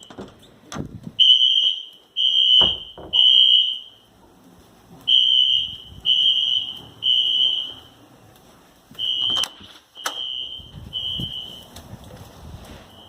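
Fire alarm horn sounding a high, piercing beep in repeating groups of three with a short pause between groups, the temporal-three evacuation pattern. It grows fainter in the last few seconds. Two sharp knocks sound about two thirds of the way through.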